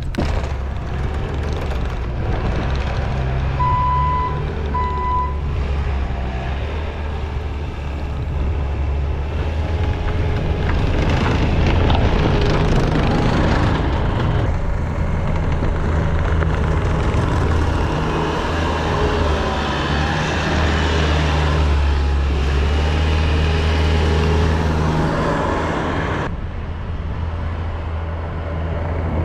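Skid steer engine running steadily while working a snow pile, with two short backup-alarm beeps about four seconds in.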